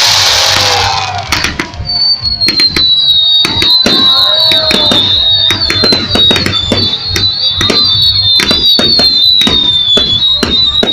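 Fireworks going off in rapid succession, with many sharp bangs and crackles. A loud hiss fills the first second, and from about two seconds in a high, wavering whistle runs on over the bangs.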